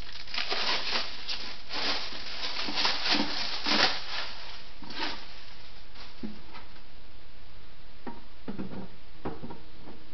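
Thin plastic protective film crinkling and tearing as it is peeled off an acrylic printer cover. In the second half, a few light knocks as the cover is set down onto the printer base.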